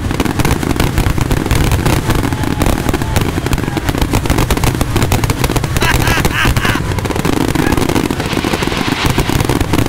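Fireworks finale barrage: many aerial shells bursting and crackling in rapid, unbroken succession.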